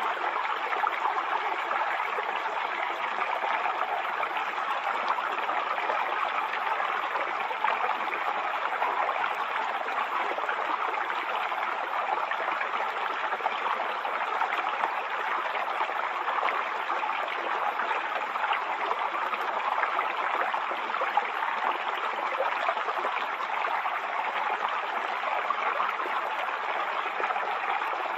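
Waterfall: water pouring and splashing in a steady, even rush, with little deep rumble.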